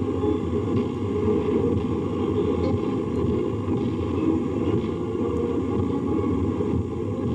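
A column of tanks passing in a parade: a steady, dense low rumble of engines and tracks.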